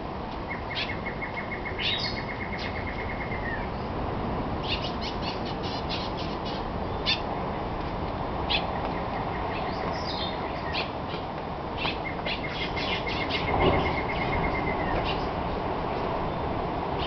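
Tropical rainforest birds calling in the early morning: many short chirps and calls, with a rapid trill held on one pitch for about three seconds that comes three times. A steady hiss runs beneath, and a brief low thump sounds about two-thirds of the way through.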